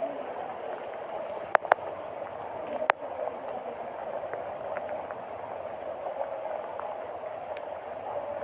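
Steady rush of flowing floodwater, with a few sharp clicks about one and a half and three seconds in.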